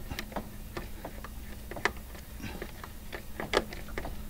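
Irregular small metal clicks and ticks, a few a second, as a hand screwdriver turns a screw in a push mower's steel wheel bracket, with two sharper clicks just under two seconds in and about three and a half seconds in.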